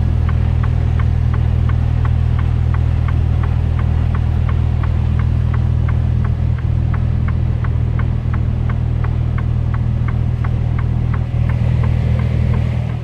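Mercedes-Benz Antos 1833's 10.7-litre six-cylinder diesel running at low revs, heard from inside the cab as a steady low hum. Over it the flasher ticks evenly, about three ticks a second.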